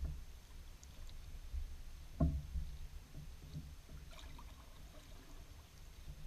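Canoe paddle strokes in the water, with trickling and drips off the blade, over a steady low rumble. A single sharp thump about two seconds in is the loudest sound.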